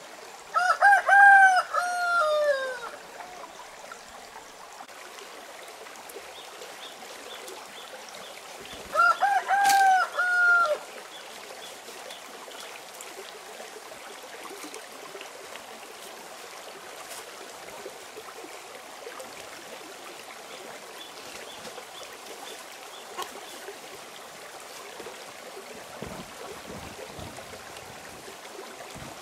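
A rooster crowing twice, each crow about two seconds long and several seconds apart, over the steady rush of a stream.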